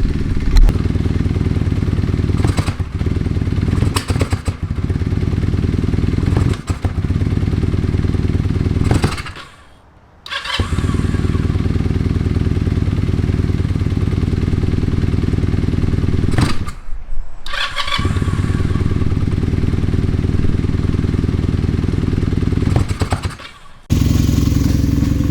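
Kawasaki KZ440's air-cooled parallel-twin engine running, its sound dropping away three times, twice deeply. The bike runs but dies whenever the throttle is opened, which the owner takes for a fuel or air problem in the carburettors.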